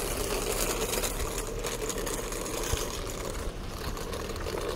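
Small wheels of a rolling bag running over cracked asphalt, a steady, dense rattle.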